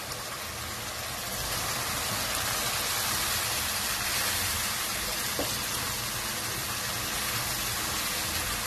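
Onion masala with the just-added prawns sizzling steadily in a hot pan, the sizzle growing louder about a second and a half in.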